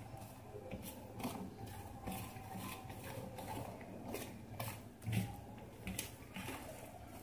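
Wire whisk tapping and scraping against a stainless steel bowl as it stirs a dry, crumbly flour and egg mix for pancake batter, in soft irregular clicks several times a second.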